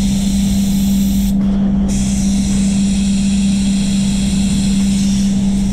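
Sagola 4600 Xtreme spray gun hissing as it sprays plastic wet-on-wet primer. The hiss cuts out briefly about a second and a half in, then starts again, over a steady low hum from the spray booth.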